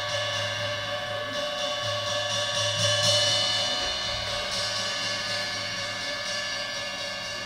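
Live percussion playing a sustained ringing wash of many steady tones, which swells about three seconds in and then slowly fades.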